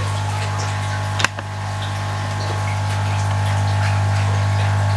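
Membrane (diaphragm) air compressor running inside an unlined chipboard box, a steady low hum. A single sharp click about a second in.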